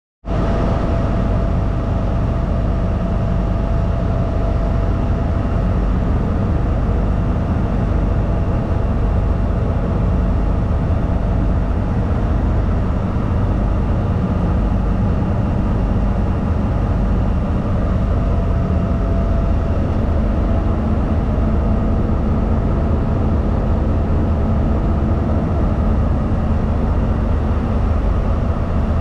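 20-cylinder MTU 20V4000 diesel prime mover of a CRRC SDA1 locomotive running steadily, heard from inside its engine room: a loud, even drone with a steady whine above it.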